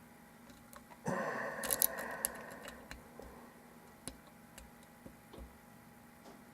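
Lock pick and tension tool working in the keyway of a Zeiss Ikon euro cylinder during single-pin picking. About a second in there is a scraping rattle with several sharp metal clicks, followed by faint scattered ticks as the pins are worked.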